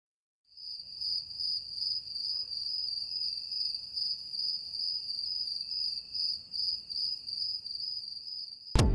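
Crickets chirping: a high, steady trill that pulses about twice a second. Music with a sharp beat cuts in suddenly at the very end.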